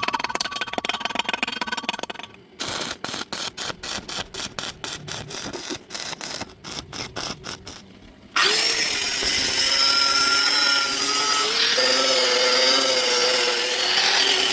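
Rapid, regular stuttering pulses, several a second, for about eight seconds. Then a handheld power tool spins up suddenly and runs loud and steady, its whine wavering as it works the metal, before spinning down near the end.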